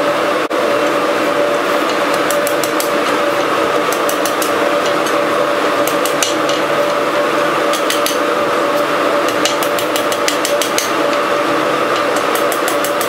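Hand hammer striking red-hot steel rebar on an anvil in quick runs of blows with short pauses between, over a steady loud machine drone.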